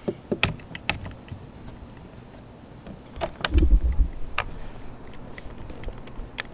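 Sharp metal clicks and taps from handling a pop rivet and the bimini's metal frame fitting as the rivet is pushed into a drilled hole in the pipe, with a dull low thump about three and a half seconds in.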